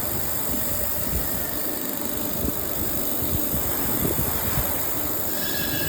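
Automatic laser welding machine running during a circular seam weld: a steady machine hum with a hiss, without pauses or distinct strikes.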